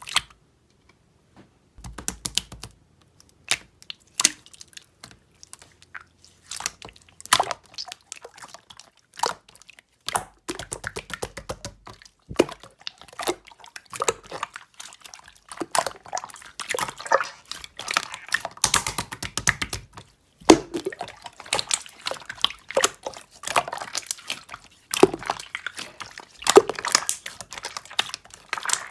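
Slime being squished, pressed and poked by hand, a stream of wet, sticky clicks, pops and crackles that starts about two seconds in.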